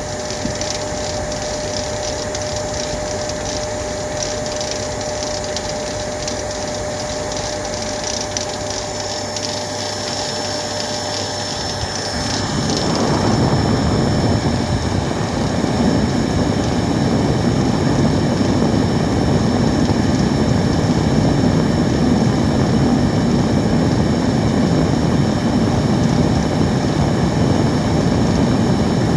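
Vacuum cleaner running with a steady whooshing hum; about twelve seconds in its sound grows louder and fuller and then holds steady.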